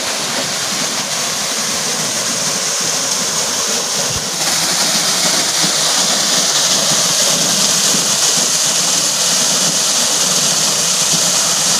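Water pouring from a pipe down into an open stone-lined well and splashing into the pool below: a steady loud rush that gets a little louder about four seconds in.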